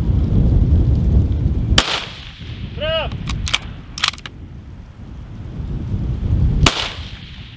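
Two precision rifle shots about five seconds apart. About a second after the first, a distant steel target rings briefly, marking a hit. Two short metallic clicks follow as the bolt is worked.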